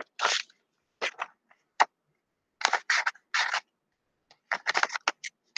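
Sheets of paper being handled and shuffled at a desk: a run of short, irregular rustles and clicks with silent gaps between them.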